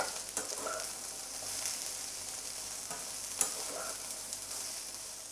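Chopped okra sizzling steadily in hot oil while a metal slotted spatula stirs the spices through it, scraping and knocking against the pan a few times.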